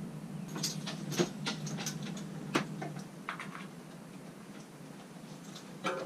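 Light clicks and taps of small metal parts as a valve core tool screws the valve core back into a tubeless tyre valve. The clicks come in a quick cluster over the first few seconds, with one more near the end.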